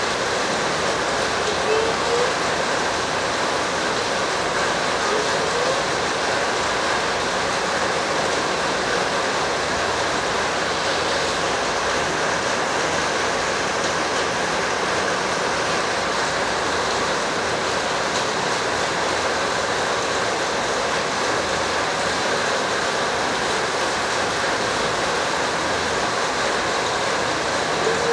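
Steady, even rushing noise throughout, with a few faint short rising squeaks.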